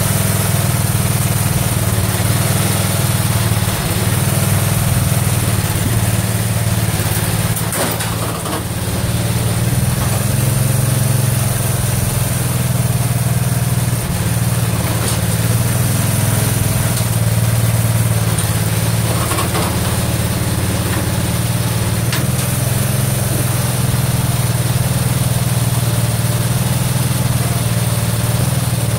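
Garden tractor engine running steadily at a constant speed, the single-cylinder-style drone of a loader-equipped lawn tractor at work, with a brief slight dip about eight seconds in.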